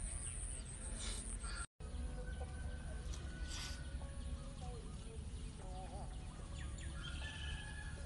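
Birds and poultry calling sporadically over a steady low outdoor rumble. There are short warbling and whistled calls, mostly in the second half, and a brief total cut in the sound just under two seconds in.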